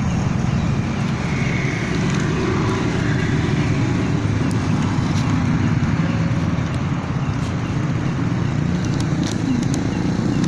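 Steady low rumble of a motor vehicle engine running nearby, with a few faint clicks.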